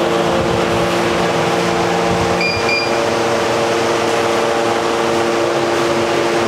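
Atlantis Classic instant tea vending machine running steadily as it dispenses a full cup of masala tea, a constant motor hum. Two short high beeps about two and a half seconds in.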